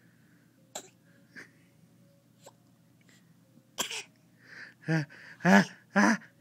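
A sneeze building up: a sharp breath about four seconds in, then three short 'ah' gasps near the end, each louder than the last and falling in pitch.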